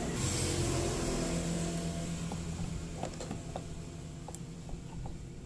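A steady low engine-like drone from a background machine or vehicle, slowly fading, with a few light clicks of hand tools being handled in the second half.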